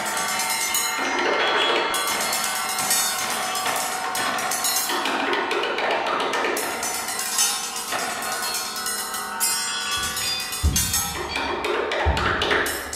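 Percussion trio playing small tabletop instruments: a dense, rapid patter of taps and clicks over ringing metal tones from struck bowls and plates. Several heavy low thuds come in during the last three seconds.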